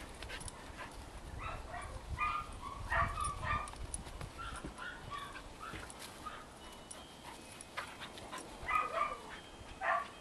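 Two dogs play-fighting, giving short high yips and barks in clusters: about two to four seconds in, and again near the end.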